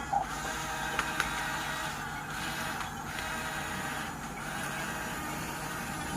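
Huina RC excavator's small electric motors and gearboxes whining steadily, with a few sharp clicks in the first second and a half.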